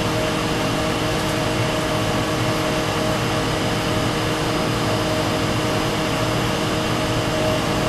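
Steady mechanical hum with an even air hiss and several steady tones, unchanging throughout.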